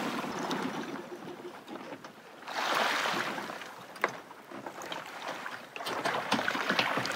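Small waves washing onto a sandy shore, swelling up and fading away twice, with a few light clicks between them.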